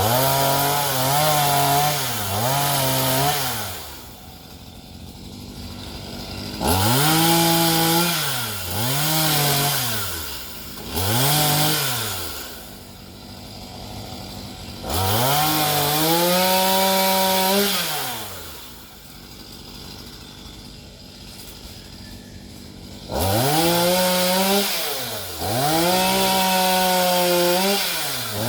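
Gas chainsaw cutting a tree limb, revved up and held at full throttle in four long bursts with brief dips in revs, dropping back to idle between them.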